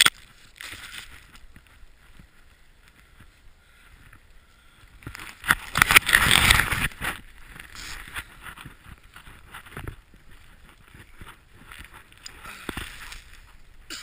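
Snowboard sliding through deep powder snow with a steady hiss, a sharp knock right at the start as a snow-laden spruce branch brushes the camera, and a loud rush of spraying snow for about two seconds in the middle.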